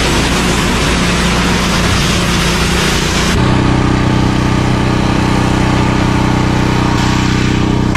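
Pressure washer jet hissing against corrugated metal siding for about three and a half seconds. Then the spray stops and the machine's motor keeps running with a steady hum.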